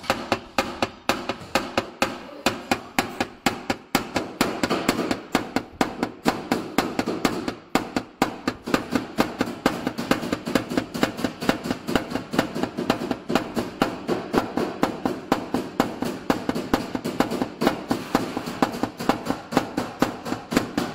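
Plastic-tipped tap-down hammer tapping steadily on a Honda CR-V's front fender panel, about four light strikes a second. This is paintless dent repair: the raised metal around a crease dent is being knocked down.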